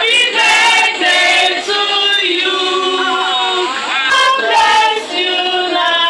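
A group of people singing together, women's voices leading, with long held and sliding notes.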